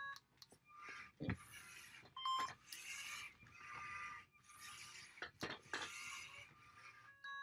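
LEGO Mindstorms Robot Inventor servo motors whirring in short spurts as two small robotic arms swing and open and close their grippers, with a couple of sharp clicks and a few short beeps.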